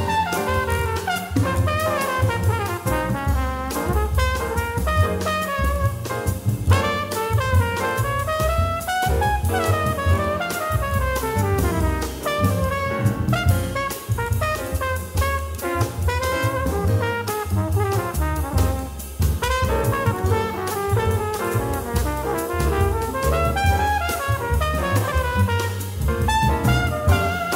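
Small-group jazz recording: a horn solo in quick runs that climb and fall, over bass, piano and a drum kit keeping time on cymbals.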